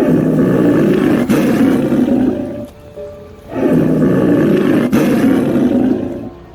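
A large animal gives two long, rough roaring calls, the second beginning about three and a half seconds in.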